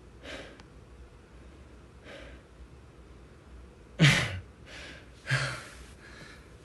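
A man breathing hard close to the microphone. A few soft breaths come first, then two loud, heavy exhales with a touch of voice about four and five and a half seconds in, with quieter breaths around them.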